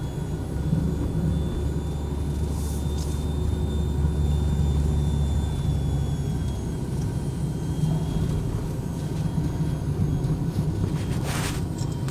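Steady low drone of a vehicle's engine and road noise while driving, heard from inside the cabin. Two brief hissing swells come about three seconds in and again near the end.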